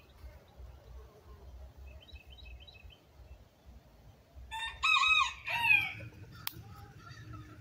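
Rooster crowing once, loud and in several parts, about four and a half seconds in and lasting around a second and a half. Before it come faint, quick chirps of a small wild bird.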